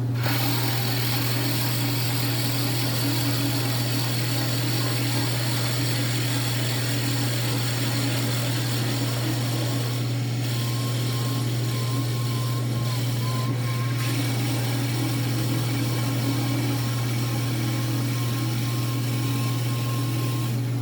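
Bauer 14" x 20" wood lathe running at speed with a strong, steady motor hum, while a drill bit fed from the tailstock quill bores through a spinning wooden call blank. The drilling noise sets in sharply at the start and holds steady, with a faint thin whine through the second half.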